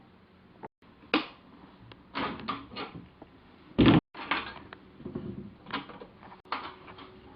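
A string of irregular knocks and clunks, the loudest a little under four seconds in.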